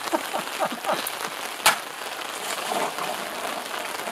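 Steady rain falling, with one sharp chop about halfway through as a sword blade strikes a plastic water jug.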